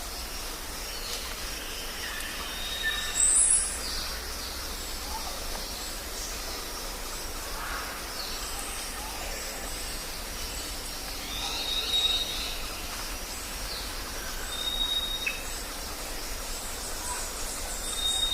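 Tropical jungle ambience: a steady background hiss with a low rumble and many small chirps from birds. One bird repeats a clear, high whistle of about half a second on a single pitch four times, and a loud, sharp upward-sweeping call stands out about three seconds in.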